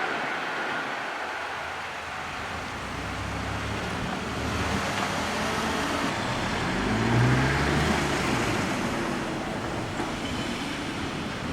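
Road traffic rumbling past, with one vehicle's engine revving up and pulling away about seven seconds in.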